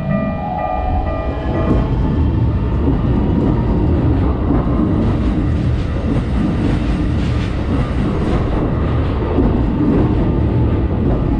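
Level-crossing warning bell ringing steadily, then a train passes and drowns it out with a loud rumble and wheels clattering over the rail joints. The bell can be heard again as the train clears near the end.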